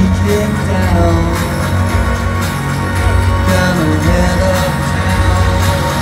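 Live electronic music over a PA: a steady droning bass and synthesizer with a male voice singing into a microphone, in two sung phrases, the second about three and a half seconds in.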